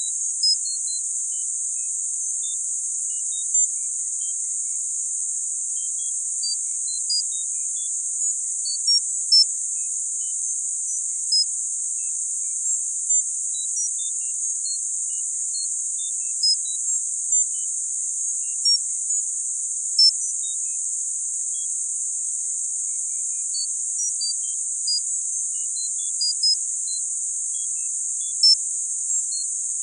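Synthetic tinnitus-masking sound: a steady, high-pitched band of hiss. Brief high pings at varying pitches are sprinkled irregularly through it, a few of them louder than the rest.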